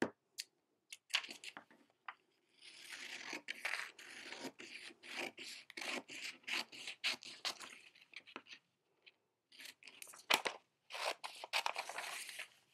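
Scissors cutting through a sheet of paper: a few separate snips at first, then steady runs of quick cuts with the paper rustling, pausing for about a second about two-thirds through before cutting resumes.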